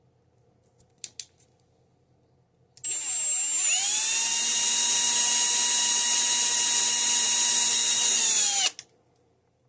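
Cordless drill with an 11/64 inch bit boring a hole through a small round of wood for a spindle whorl. A couple of clicks come about a second in. Then the motor whines up to speed and runs steadily for about six seconds before stopping.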